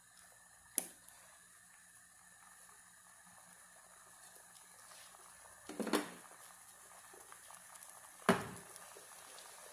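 Milky white sauce simmering faintly in a nonstick pan, with three sharp knocks, about one second in, near six seconds and near eight seconds: the cup of cream being tapped against the pan as it is emptied in. The last knock is the loudest.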